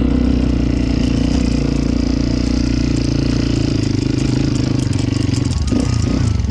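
Motorcycle engine running steadily with a fast, even pulse.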